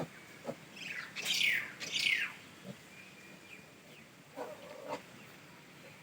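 Farm animals calling: a cluster of short, high-pitched calls, each falling in pitch, about a second in, then a lower, shorter call near five seconds.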